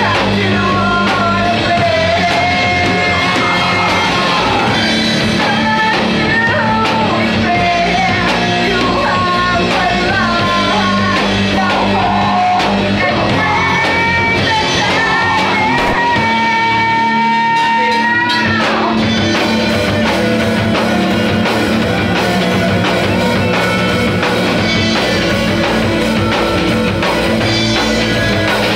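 Rock song played loud and steady, a full band with a sung and shouted vocal line and one long held note a little past the middle.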